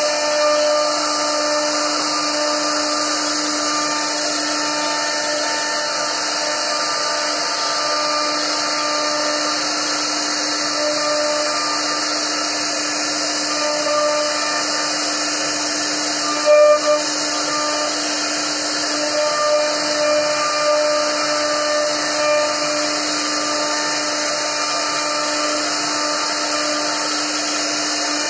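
CNC wood router carving a relief pattern into a wooden panel: its spindle runs with a steady whine and the bit cuts through the wood, with fainter tones coming and going over it. There is one brief louder moment just past halfway.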